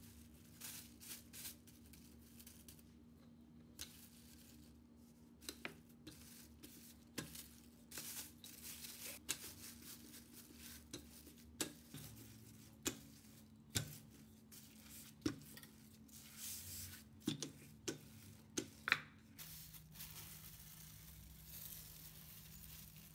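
Plastic film crinkling and rustling while tart dough is rolled out under it with a wooden rolling pin, with many light clicks and knocks scattered through.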